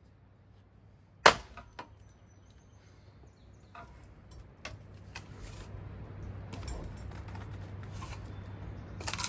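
A ceiling fan running under low motor hum: a sharp loud crack about a second in and a few lighter knocks, then a whirring rush that builds steadily, ending in another loud crack as part of the fan breaks.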